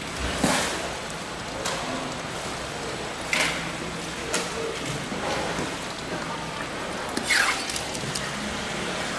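A knife and then a brush scraping along a raw mahi-mahi fillet on a plastic cutting board: about five short scrapes spaced a second or more apart, over a steady hiss.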